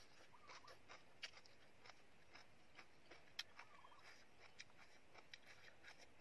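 Faint, irregular crunchy clicks of someone chewing a mouthful of stir-fried water spinach and pork, with a few louder snaps about a second and three seconds in.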